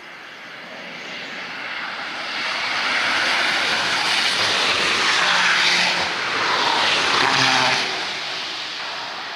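Camouflaged BMW SUV prototype driving past at speed, its engine and tyre noise swelling as it approaches, loudest through the middle, then fading as it moves away.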